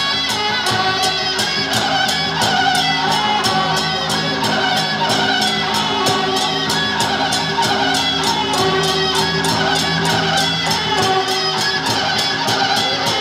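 Traditional-style music with sustained melody notes over a steady percussion beat of about four strokes a second.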